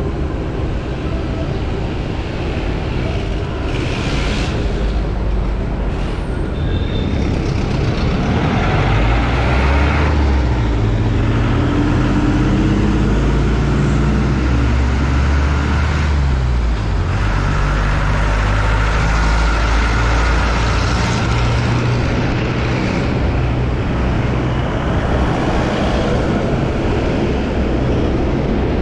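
Heavy city road traffic heard from a moving scooter in a bike lane, with the low rumble of large vehicle engines close by. Near the middle one heavy engine's pitch slides steadily down over several seconds.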